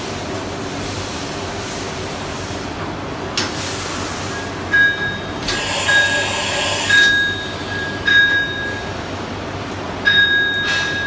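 CNC machining centre with a steady machine hum. About five seconds in comes a rush of air hiss and a run of five short, high-pitched tones about a second apart.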